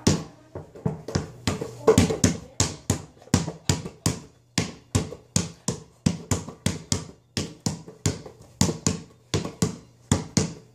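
Basketball being dribbled rapidly, sharp bounces about three to four a second in a quick steady rhythm.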